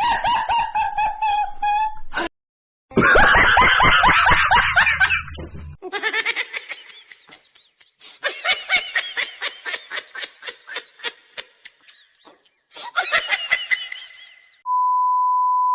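Bursts of rapid, high-pitched laughter cut together with short breaks, then a steady one-tone beep about a second long near the end.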